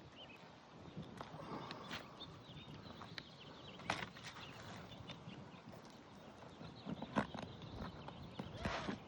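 Scattered clicks, knocks and scrapes of a cat's paw pry bar working roofing nails out from under lifted shingles. The sharpest knocks come about four seconds in and about seven seconds in.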